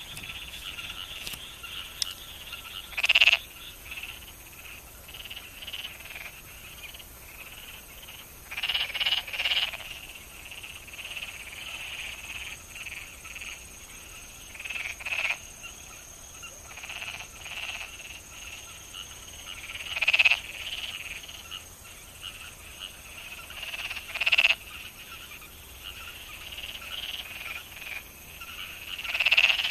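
A chorus of frogs calling continuously in a rice paddy, with louder close calls standing out every few seconds, some in quick runs of two or three.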